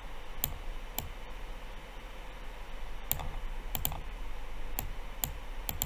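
Computer mouse clicking: about eight sharp single clicks at irregular intervals, over a faint steady low hum.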